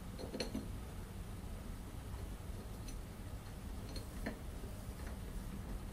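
A few faint, short clicks as a screw is turned in by hand into a metal plate, over a low steady hum.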